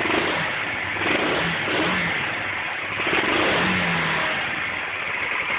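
Cleveland CycleWerks Misfit motorcycle running on its stock exhaust while warming up after a hard start, the throttle blipped so the revs rise briefly about a second in and again around three seconds in.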